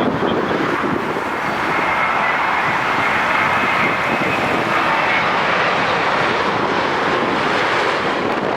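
Boeing 787 airliner's jet engines during a landing, a loud steady noise with a faint high whine in the middle.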